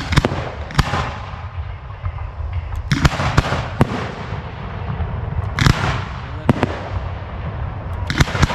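Display fireworks going off: sharp bangs at uneven intervals, several close together in small clusters, some followed by a spread of crackling.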